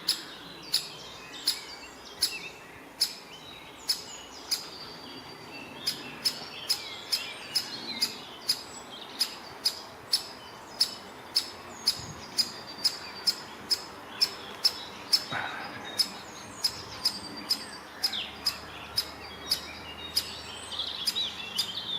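Great spotted woodpecker giving a long series of short, sharp 'kik' calls, about two a second, with other birds singing faintly behind.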